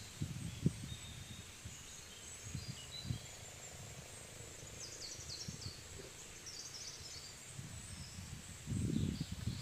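Quiet outdoor ambience with faint, scattered bird chirps. There are low thumps and rustling near the start, and a louder low rustle rises near the end.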